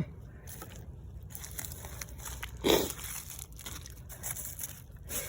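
Crinkling and crunching of dump debris being rummaged through by hand, with one brief, louder dull sound about two and a half seconds in.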